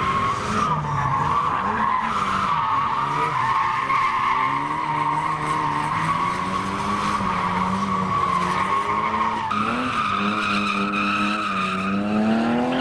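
Drift cars sliding sideways, a Nissan S14 and then a BMW E36 3 Series: a steady high tyre squeal over engines revving up and down as the drivers hold the slide. Near the end the engine revs rise sharply.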